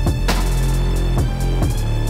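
Electronic music with a heavy beat: deep bass hits that fall in pitch, and a sharp crash about a third of a second in.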